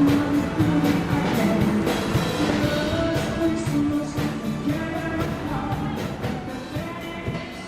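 Rock band music with a drum kit and sustained pitched notes, fading out steadily.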